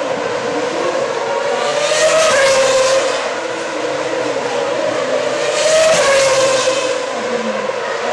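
Formula One racing cars at high revs, a steady engine drone with two louder passes about two and six seconds in, each rising briefly in pitch and then dropping as the car goes by.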